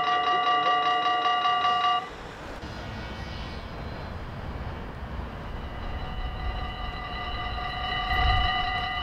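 Dutch level-crossing warning bells ringing rapidly, cutting off suddenly about two seconds in. A low rumble follows, and the bells start up again about six seconds in as the crossing activates for an approaching train.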